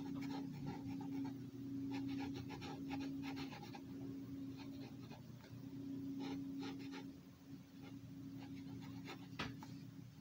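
Red Sharpie marker scratching on paper in runs of quick short strokes with pauses between, as small areas of a pattern are coloured in. A steady low hum runs underneath.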